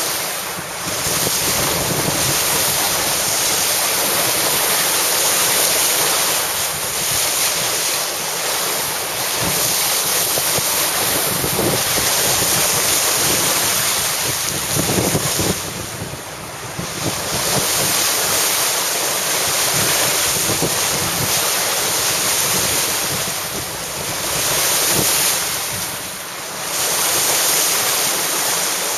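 Wind buffeting the microphone over the rush of sea water along a moving boat's hull, a steady roar that dips in loudness a few times.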